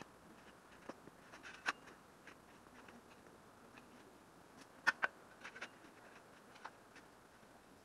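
Garden spade working into soil: faint scraping with a few short, sharp crunching clicks, the loudest a pair about five seconds in.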